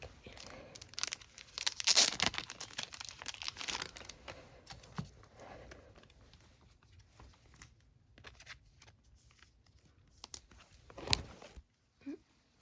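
Merchandise packaging being torn open and crinkled by hand, a dense crackle that is loudest in the first few seconds and then thins to scattered rustles, with a single knock near the end.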